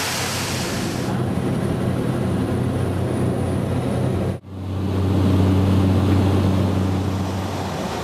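Waterfall rushing for about the first second, then the engine and propeller of a small single-engine plane running steadily with a low hum, heard from inside the cabin. The sound cuts out sharply for an instant about four seconds in and resumes louder.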